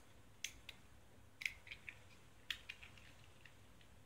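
Faint, sharp clicks and taps of small plastic mold parts being handled and fitted together, a scattered handful of them with a small cluster about a second and a half in.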